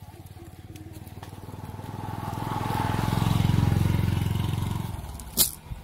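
A small engine, like a motorcycle's, passes by: its rapid low pulsing grows louder toward the middle, then fades away. A single sharp click comes near the end.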